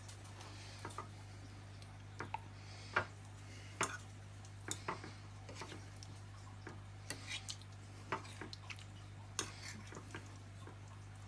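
Scattered light clicks and taps of kitchen handling against a plate as a chicken breast is worked around in thick yogurt sauce, at irregular intervals over a steady low hum.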